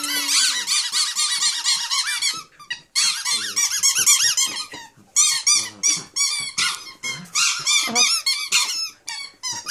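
Rubber squeaky dog toy squeaking over and over in fast, high-pitched runs with brief pauses, as a Sheltie puppy bites and tugs at it.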